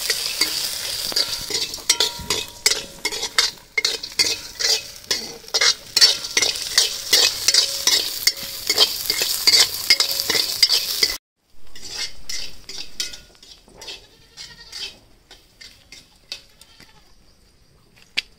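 Metal ladle stirring and scraping peanuts, lentils and shallots as they sizzle in oil in an iron kadai, with many quick scrapes and clinks. After a sudden cut about eleven seconds in, the sizzling drops away to faint scraping, with goats bleating.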